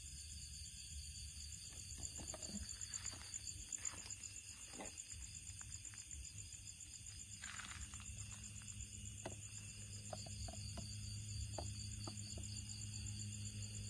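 Steady high, pulsing chirring of night insects, with scattered faint rustles and ticks of a kitten moving through grass and leaves, one rustle a little louder about halfway through.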